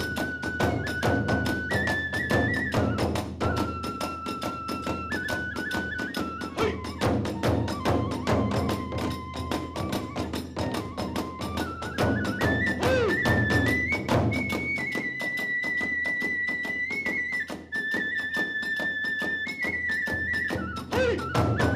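Hiroshima kagura hayashi ensemble playing: a kagura flute holds long notes that step up and down in pitch over fast, driving taiko drum beats and hand-cymbal clashes. The deep drum strokes thin out for a few seconds past the middle.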